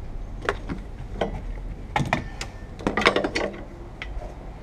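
Irregular clicks, clacks and knocks of hand tools and plastic cowl trim being handled under a car's hood: about half a dozen separate sharp knocks, with a quick clattering cluster about three seconds in.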